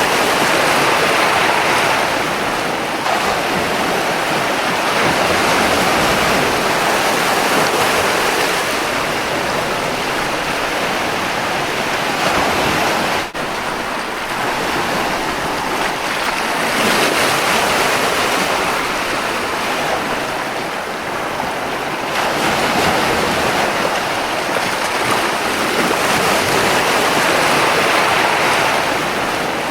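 Ocean surf: waves breaking and washing in a steady rush that swells and eases every several seconds, with a brief drop in level about halfway through.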